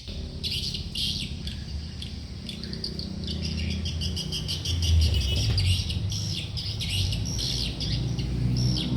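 Little spiderhunter (sogok ontong) chirping rapidly: a dense run of sharp, high-pitched calls and trills, over a steady low hum.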